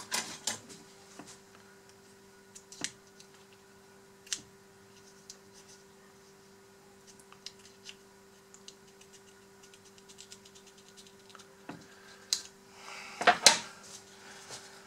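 Small snips, clicks and scratches of heat-shrink tubing being cut and peeled off a small RC electronic speed controller. A louder cluster comes near the end, and a steady low hum runs underneath.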